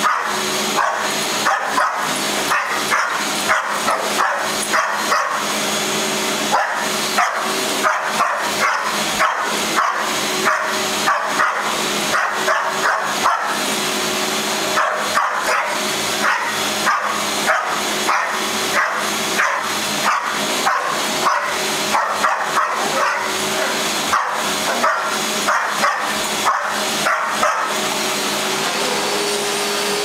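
Dalmatian barking over and over, about two barks a second, at a vacuum cleaner running steadily on carpet. The barking breaks off briefly about halfway and stops near the end, leaving the vacuum's steady hum.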